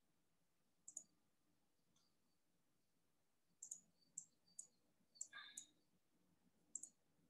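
Faint computer mouse clicks, scattered irregularly: a pair about a second in, then a run of single clicks later on, over near silence.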